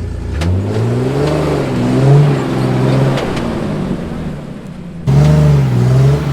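A Jeep engine revving under load while rock crawling. Its pitch climbs during the first couple of seconds, holds, sags, then jumps back up sharply about five seconds in.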